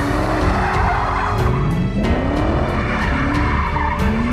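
Nissan S13 drift coupe sliding in circles: tyres skidding and squealing while the engine revs rise and fall, with one long climbing rev about a second and a half in. Background music with a steady beat runs underneath.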